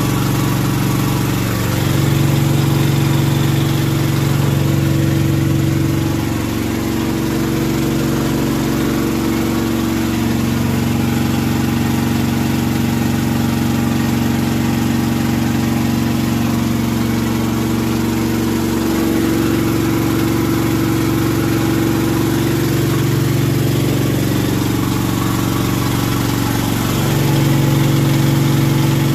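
A small portable water-pump engine, run on LPG from a gas cylinder, running steadily. Its speed dips and recovers slightly a few times.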